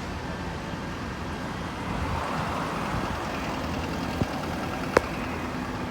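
Steady low rumbling noise with two sharp knocks, a light one about four seconds in and a louder, briefly ringing one a moment later.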